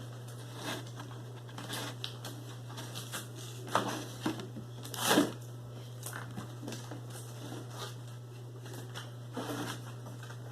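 Toy packaging rustling and crinkling as a child pulls and picks at it, trying to get it open, with two louder crackles about four and five seconds in.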